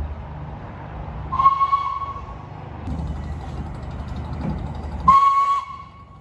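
Steam locomotive whistle giving two blasts on one steady note: the first about a second in, lasting roughly a second, the second louder, near the end. A low rumble from the train runs underneath.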